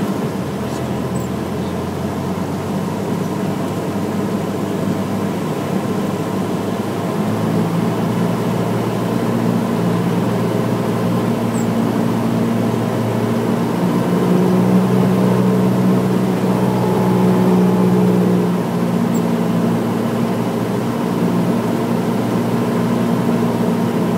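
Cessna light aircraft's engine and propeller droning steadily, heard from inside the cockpit on final approach. The engine note shifts slightly a few times, grows louder about halfway through for a few seconds, then drops back.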